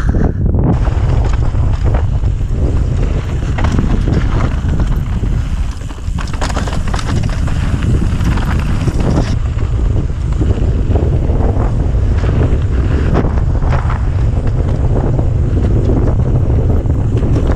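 Heavy wind buffeting the action-camera microphone on a fast mountain bike descent, over a constant low rumble, with the tyres crunching over gravel and rock and frequent sharp clicks and rattles from the bike.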